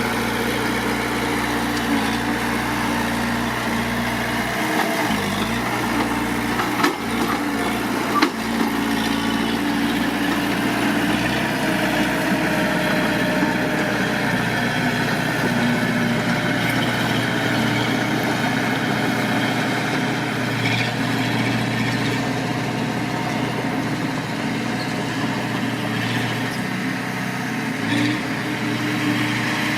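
Mitsubishi D20 bulldozer's diesel engine running steadily, with two sharp knocks about a quarter of the way in.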